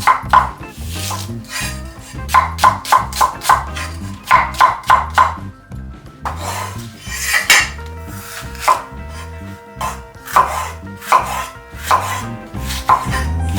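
Background music with a steady beat, over runs of quick, sharp knocks.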